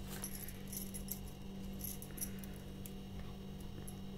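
Glass bangles clinking lightly against each other as they are worked over a hand: a scatter of small, high chinks, over a steady low hum.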